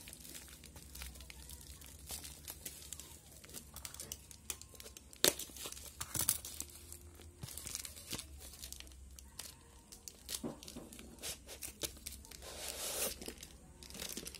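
Packaging being torn open and handled: crinkling, tearing rustles with scattered sharp clicks and taps, and a longer, louder rustle near the end.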